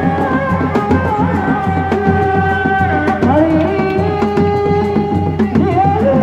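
Sundanese seni reak music: dog-dog frame drums beat a steady, fast rhythm under a long, wavering melody line that bends and glides in pitch, played loud.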